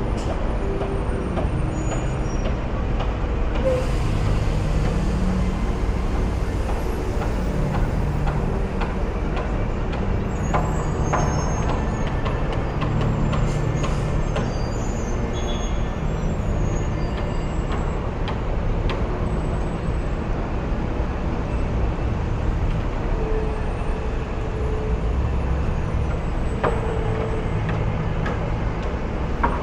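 Manhattan street traffic: the steady low rumble of buses, trucks and cars running past, with a hiss lasting a few seconds about four seconds in and scattered clicks and short squeaks on top.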